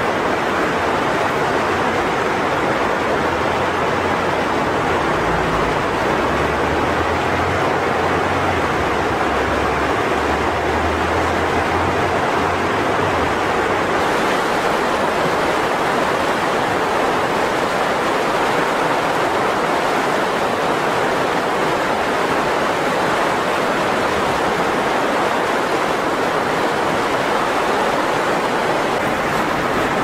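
Mountain river rushing over rapids: a steady, even rush of white water, with a low rumble that comes and goes in the first half.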